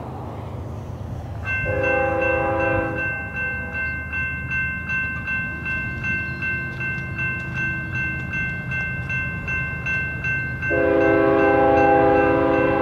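Approaching GE diesel freight locomotive sounding its multi-chime air horn for a grade crossing in two blasts, a short one about two seconds in and a longer one near the end. Over the same stretch the crossing's warning bell rings in quick, even strokes, with a low diesel rumble underneath.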